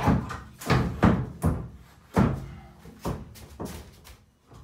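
Knocks and clunks of a large heavy-duty plastic tub-surround wall panel being pushed and bumped into place against the wall studs and the panel below. About seven separate sharp knocks come in the first four seconds, the loudest about a second in.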